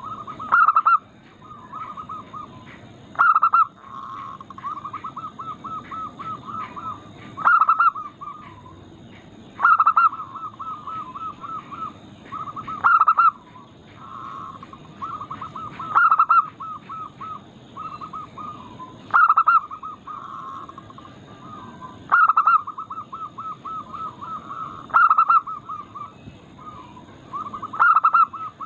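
Zebra doves (perkutut) singing: a loud coo about every three seconds, with quick runs of short, even coos between them.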